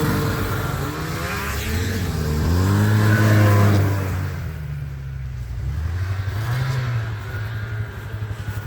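Snowmobile engines revving as the sleds come in, pitch rising and falling and loudest about three seconds in, then dropping back to a low, choppy idle near the end.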